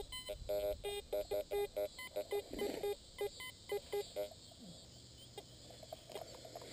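Fisher F75 metal detector sounding a rapid run of short target beeps at a couple of different pitches as the coil is swept over a buried target, stopping a little past four seconds in.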